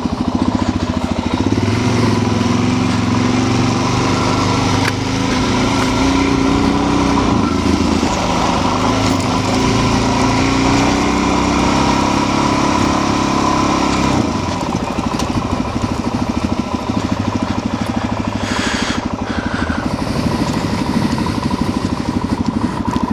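Suzuki DR-Z400's single-cylinder four-stroke engine running while riding, holding steady revs, then easing off to lower revs about fourteen seconds in.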